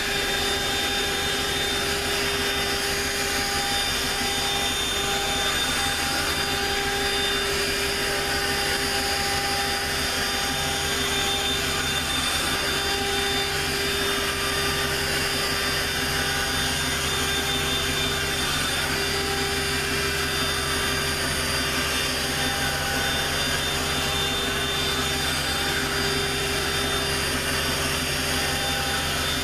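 Dirt Devil Quick Flip Pro cordless handheld vacuum running steadily with its powered brush attachment, drawn over a carpet mat: a steady motor whine over rushing air.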